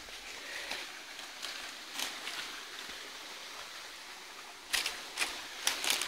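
Steady rush of flowing water from the waterfall, with about four sharp clicks near the end.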